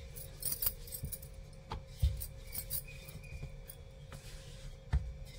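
Kitchen handling noises: a few light clinks and taps of utensils and dishes, with two duller thumps, about two seconds in and near the end, as things are set down.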